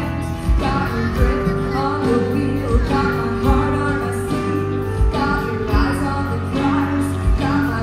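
Live rock band playing: electric guitar, bass guitar, drum kit and keyboard, with steady drum hits and a woman singing long held notes.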